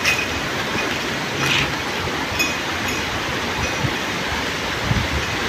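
Steady outdoor hiss, with a brief rustle about a second and a half in as scavenged cardboard and plastic are pushed into a woven sack. A few faint high chirps come near the middle.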